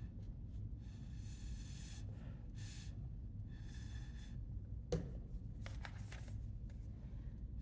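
Short, repeated puffs of breath blown through a drinking straw to push watery watercolor paint across paper. A single sharp click or knock about five seconds in.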